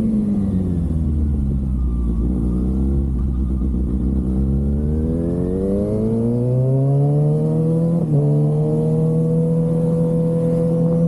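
Kawasaki ZX-6R's inline-four engine under way: the revs fall for a few seconds, sit low, then climb smoothly again. After a brief break about eight seconds in, it holds a steady higher note.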